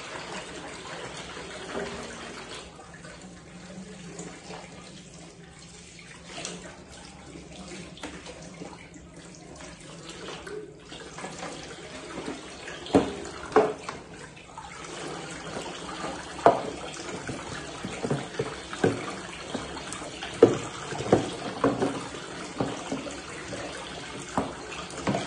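Kitchen tap running into a sink as dishes are washed by hand. About halfway through, sharp clinks and knocks of dishes and utensils against each other and the sink come in, repeated every second or so.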